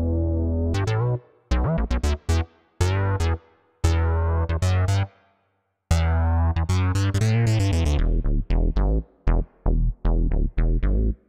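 Backing music: synthesizer and keyboard chords over a deep bass, in stop-start phrases broken by short silences, with a sharper beat coming in after about eight seconds.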